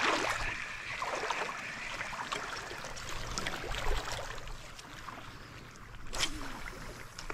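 Small waves lapping and trickling over a shallow rocky reef flat, with many scattered light clicks and one short sharp noise about six seconds in.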